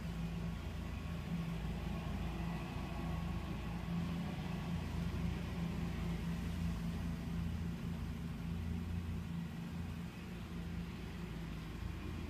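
A steady low engine hum, muffled, heard from indoors through a closed glass storm door.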